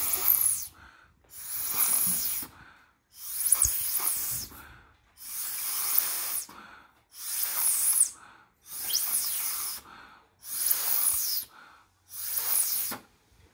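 Hard puffs of breath blown through a drinking straw across the top of a second straw standing in a glass of water: about eight hissing blasts, each about a second long, with short pauses between. The air jet draws water up the upright straw and sprays it out like a fountain (a straw atomizer showing Bernoulli's principle).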